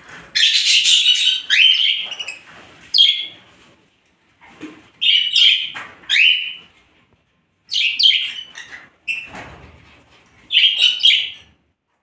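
Hand-tame lovebird giving shrill, rapid chirping calls in several bursts with short pauses between them.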